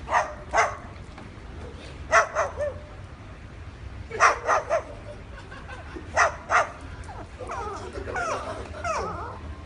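A dog barking in short groups of two or three about every two seconds, then a run of wavering, rising and falling yowls about two-thirds of the way in.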